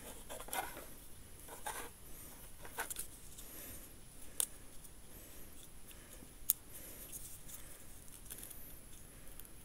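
Small clicks and scraping of a plastic mini tripod's ball head and mounting screw being turned and adjusted by hand, with one sharper click past the middle.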